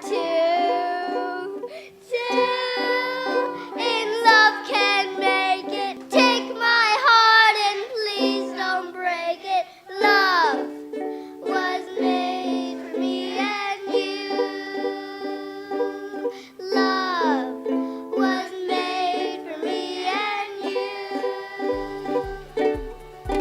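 Background music: a gentle ukulele-led song with a sung melody gliding over the strummed chords, and a low bass beat coming in near the end.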